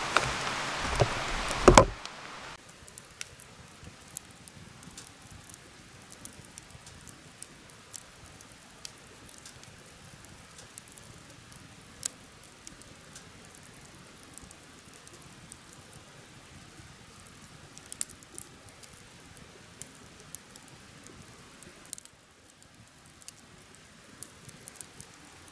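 Wood bonfire crackling: scattered sharp pops over a faint hiss. A louder stretch of noise and pops in the first two seconds cuts off abruptly.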